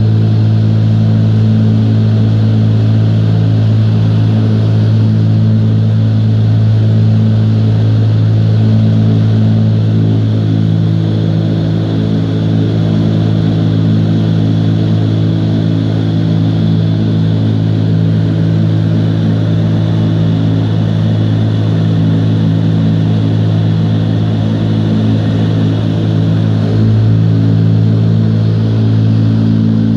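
Vertical wind tunnel for indoor skydiving: the big fans run with a loud, steady rush of air over a strong low hum, which shifts slightly near the end.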